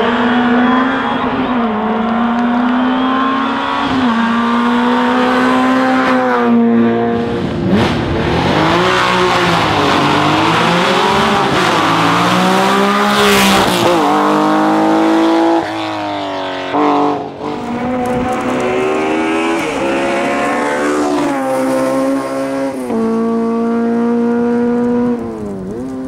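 Hill-climb race car engines at full throttle, several cars one after another, revving up through the gears and dropping in pitch as they lift off and shift.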